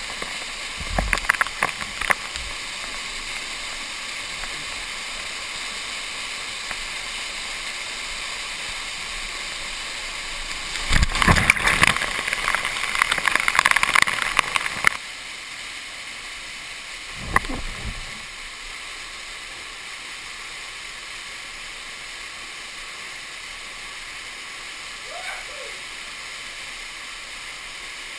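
Steady rush of a canyon waterfall and torrent. For about four seconds in the middle, falling water pounds close on the camera and the sound gets much louder. There are a few knocks in the first couple of seconds and a single thump a little after the loud stretch.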